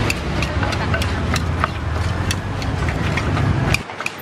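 Wooden pestle knocking in a clay mortar, about three strikes a second, as chillies are pounded for som tum. Under it a steady low engine rumble runs and stops abruptly near the end.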